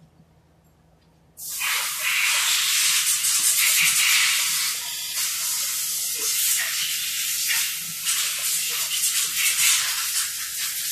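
A jet of pressurised gas hissing loudly and continuously, starting about a second and a half in and wavering slightly in strength as it goes.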